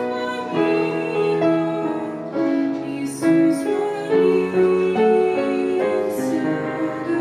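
Music: a melody played on a keyboard, moving in distinct stepped notes over sustained lower tones.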